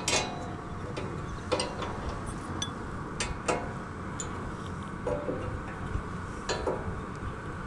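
Steel open-end spanners clicking and clinking against a lock nut and its adjustable bolt as the nut is tightened. There are scattered sharp metallic clicks, roughly one a second, some with a short ring, over a steady low background noise.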